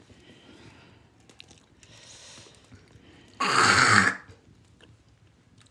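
One short, abrupt throat noise from a person, lasting under a second, about three and a half seconds in, over a quiet room background.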